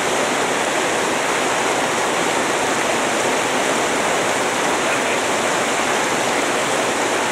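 River rapids rushing steadily: an even, unbroken roar of water.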